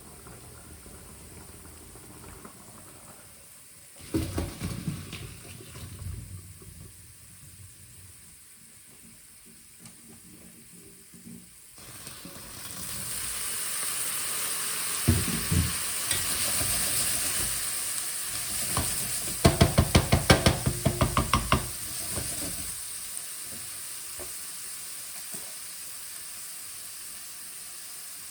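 Food frying in a pan: a loud sizzle swells up partway through while utensils knock and scrape against the pan, with a quick run of knocks near the peak of the sizzle. There is an earlier clatter of knocks before the sizzle starts.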